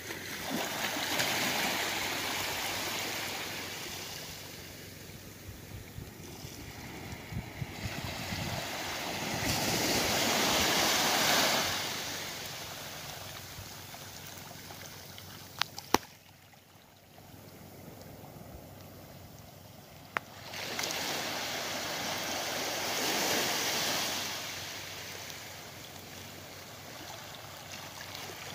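Small waves washing up a shell-strewn beach, the wash swelling and dying away three times, about ten seconds apart. A few sharp clicks about halfway through.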